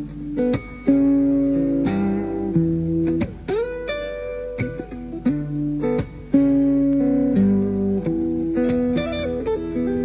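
Background music: an acoustic guitar plays plucked notes and chords, with a note sliding up in pitch about three and a half seconds in.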